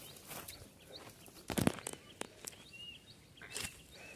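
Small birds chirping faintly in short, high, scattered notes, with a few brief rustling knocks; the loudest knock comes about one and a half seconds in.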